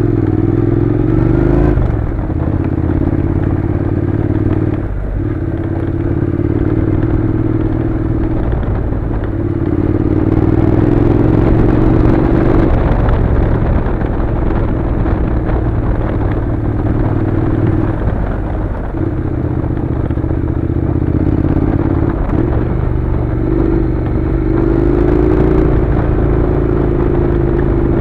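Honda NC700's parallel-twin engine running at a steady low pace, its note dropping out briefly every few seconds and picking up again, with the tyres crackling and scraping over loose gravel.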